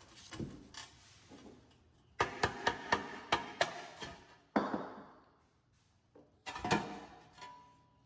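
Hammer blows on a cold chisel cutting into the rusted steel shell of an old water heater: a quick run of about seven strikes, then a few heavier single blows, the thin sheet metal ringing after each.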